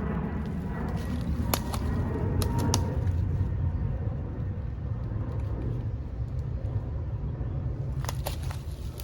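Outdoor trail ambience: a steady low rumble with a few sharp clicks, in a cluster about a second and a half to three seconds in and again near the end.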